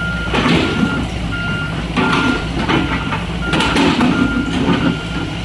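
Heavy construction machine's back-up alarm beeping in a steady repeating pattern, over the low rumble of its diesel engine, with several sharp clanks of debris.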